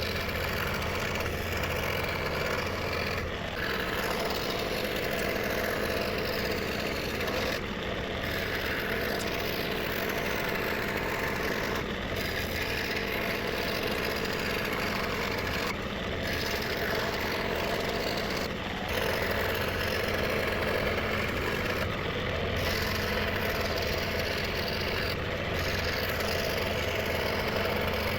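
Scroll saw running steadily with a Pegas spiral blade, cutting through thin 3.6 mm plywood.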